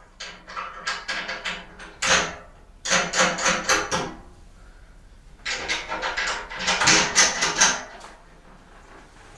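Rapid runs of small metallic clicks and rattles in four spells as the nuts are put back onto a wheelbarrow axle and run down with a wrench.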